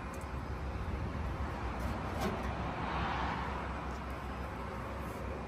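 Steady low machinery hum and hiss of a fabrication shop, with a faint tap about two seconds in and a brief swell of hiss a little after the middle.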